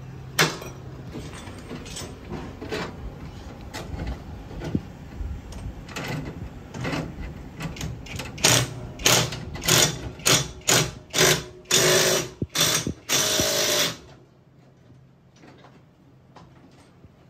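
Hand tools working on e-bike brake parts: a run of metallic clicks and rattles that turns into loud rasping strokes about two a second, then stops abruptly a few seconds before the end.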